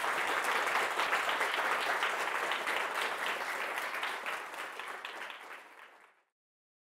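Audience applauding at the end of a lecture, a dense patter of many hands clapping that fades in the last seconds and cuts off abruptly about six seconds in.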